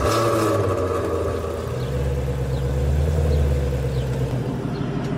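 Produced sound effect for an animated logo intro: a swoosh hit at the start, then a steady low car-engine rumble that shifts up about two seconds in and fades a little after four seconds.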